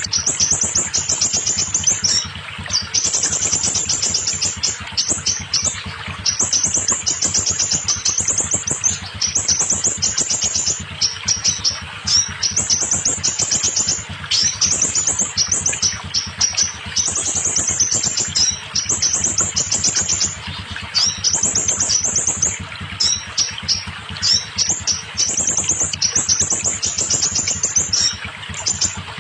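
Scarlet minivet singing in full song: rapid, high trilling phrases repeated back to back with short gaps, over a steady hiss.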